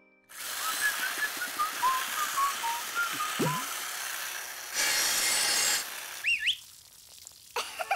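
Cartoon chainsaw running as it cuts through a hedge, with short whistled chirps over it. About five seconds in there is a louder burst of cutting lasting about a second, then a quick rising whistle.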